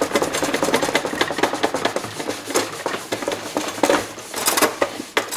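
A cloth rag is being rubbed briskly over the sheet-metal housing of a gummed tape dispenser, a continuous scratchy wiping noise made of quick strokes. A few louder knocks come through where the hand and rag bump the casing.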